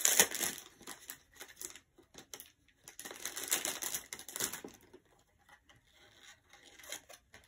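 Rustling and crinkling handling noise with scattered small clicks, in two louder spells near the start and about three seconds in: hands fiddling with small hair accessories while working them into hair.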